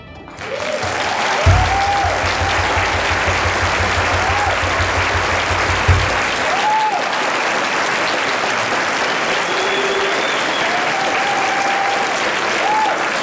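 Large audience applauding and cheering, with a few short whoops. A couple of seconds in, a rapid low thudding runs underneath for about four seconds.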